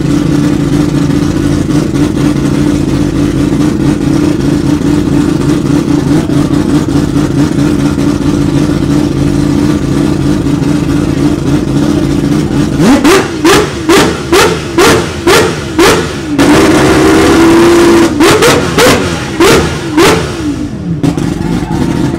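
Five-rotor rotary engine of Mad Mike's 787D idling steadily, then, about 13 seconds in, revved in a rapid string of short blips with one longer held rev in the middle, before settling back to idle just before the end.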